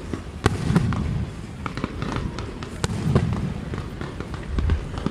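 Aerial fireworks display going off overhead. Sharp cracks are scattered through it, with low booms about a second in, around three seconds in and near the end.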